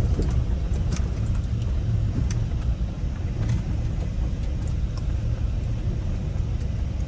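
Steady road and engine rumble heard from inside the cabin of a Ford Transit camper van driving slowly, with a few faint ticks and rattles.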